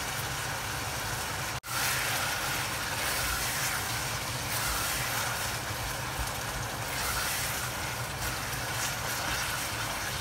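Onion-and-chili sauce sizzling in a pot on a gas hob as a wooden spatula stirs it, over a steady low hum. The sound cuts out briefly about a second and a half in.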